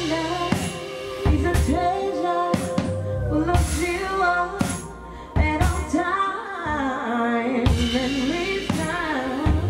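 Live band: a woman singing a winding melody into a microphone over drum kit and bass, with regular drum hits. The band drops back briefly about five seconds in.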